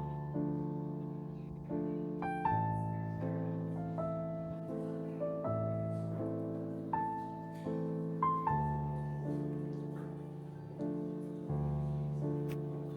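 Soft background piano music: slow sustained chords with a melody of single notes above them.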